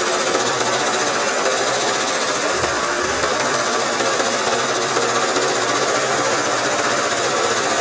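Sewing machine running fast and steadily, stitching free-motion embroidery: a continuous rapid rattle of the needle and mechanism while the hooped fabric is moved by hand.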